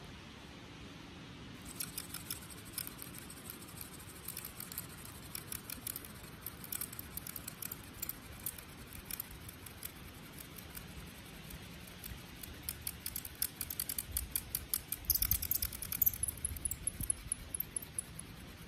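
Yucca hand drill spun between the palms in a cedar hearth board: a run of small, sharp ticks and scratches from the drill grinding in its socket, starting about a second and a half in. They grow denser and louder toward the end, peak with a low rumble, then stop shortly before the end.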